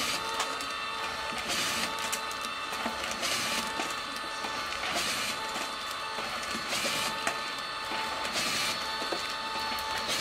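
LAB510 automatic label applicator running with a steady motor whine. A short hiss comes back about every second and a half to two seconds as the pouches are fed through and labelled.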